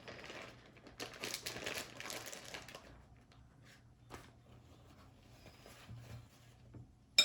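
Paper towels rustling and crinkling as they are wrapped around a wad of thawed shredded zucchini, most busily in the first few seconds and then fainter. Near the end there is a single sharp knock.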